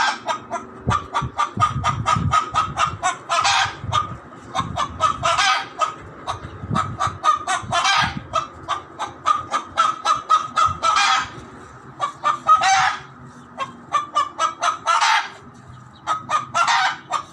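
A hen cackling loudly: fast runs of short clucks, each run ending in a longer, louder squawk, repeating every two to three seconds.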